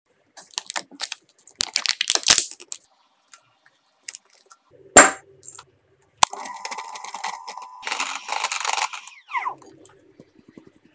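Paper butter wrapper crinkling and crackling as it is unwrapped, then one sharp knock about five seconds in. About three seconds of steady scraping and beating follow as butter and icing sugar are creamed in a glass bowl.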